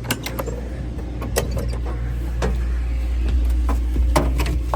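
Diesel engine idling steadily as it warms up, with a low hum. Several sharp clicks and knocks come at uneven intervals over the top.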